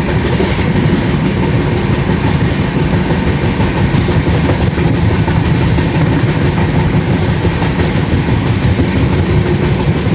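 A moving train running, with a loud, steady rumble of wheels on the track.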